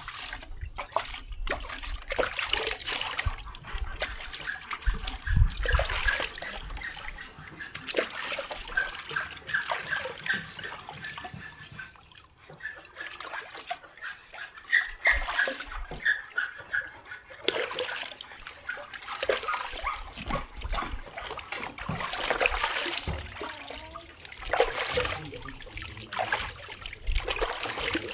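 Water splashing and trickling as a dog is rinsed with water, in a run of irregular splashes. A thin, high broken whine runs through the middle stretch.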